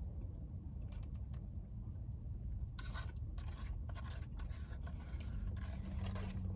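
Close-up chewing and crunching of food, with scattered short crunchy clicks that cluster around the middle and again near the end, over a low steady hum.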